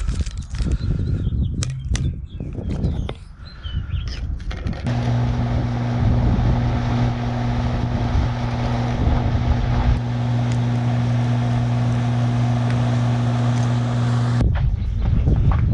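Work-machine engine running at a steady speed with an even low hum that starts about five seconds in and cuts off abruptly shortly before the end. Before it, knocks and rustling with wind on the microphone.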